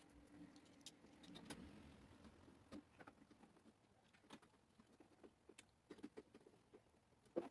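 Near silence with faint, scattered clicks and light taps of parts being handled, and one sharper click near the end.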